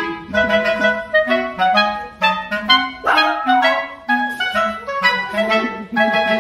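Background music: a light, bouncy woodwind melody, clarinet-like, over a steady repeating bass line.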